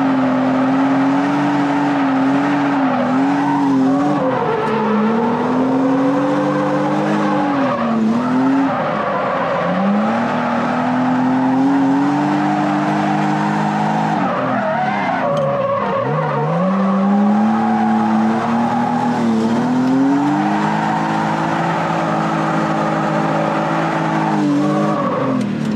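Cabin sound of a 1997 BMW E36 M3 drift car's inline-six engine under hard drifting: the revs climb, hold high, then drop away and climb again about five times, over the steady squeal of sliding tyres.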